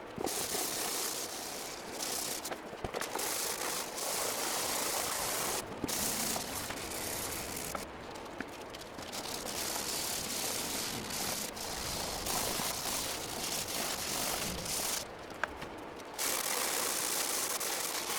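Aerosol spray paint can hissing in long bursts of a few seconds each, with short pauses between them, as a coat of paint goes onto the typewriter's body.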